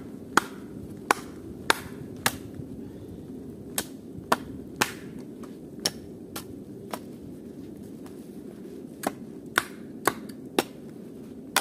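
Hatchet chopping a thin wooden pole, trimming it with sharp single blows. About fifteen strikes come in quick runs of three or four, with short pauses between the runs.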